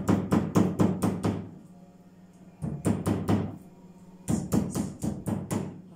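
Wooden meat mallet pounding chicken breast pieces on a wooden cutting board, flattening the meat so it won't shrink. Three quick runs of knocks, about five a second, with short pauses between.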